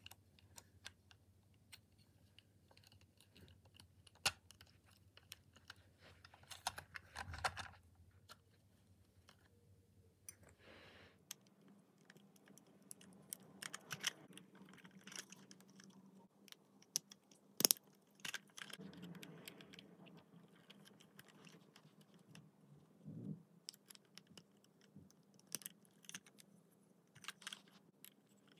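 Plastic module halves of a Clementoni SlitherBot robot snake kit being pressed and snapped together by hand, giving scattered light clicks and taps, with one sharp snap a little past halfway.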